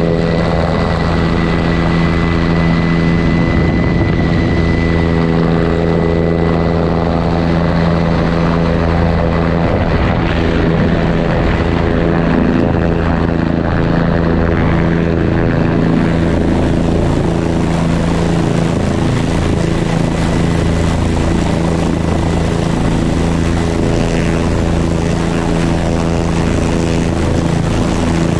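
Helicopter's turbine engine and main rotor running steadily at close range, heard from the aircraft itself. A thin high whine sounds over it for the first few seconds and then fades.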